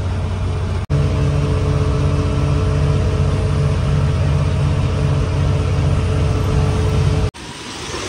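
A loaded truck's engine runs steadily under load, pulling uphill, with a low even drone. The sound breaks off sharply twice, about a second in and near the end, and comes back quieter after the second break.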